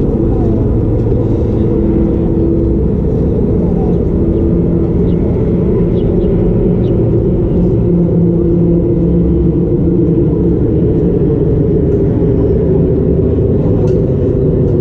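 Steady low rumble of road traffic on an elevated highway, with a constant hum.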